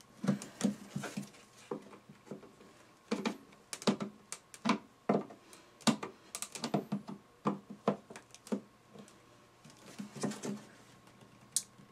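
A flathead screwdriver prying and twisting between a Smart Forfour headlight's plastic lens and its housing, giving many irregular clicks and knocks as the heat-softened mastic sealant lets go and the lens starts to come away.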